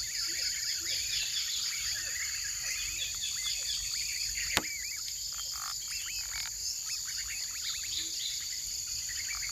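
Forest ambience: a steady high insect drone with many short chirping animal calls, and one sharp click about halfway through.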